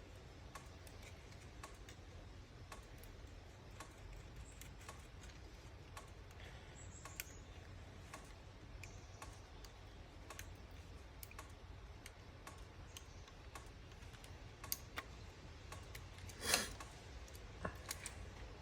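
Faint, scattered light clicks and taps from small parts and tools being handled on a workbench, with a short, louder rattle about sixteen seconds in.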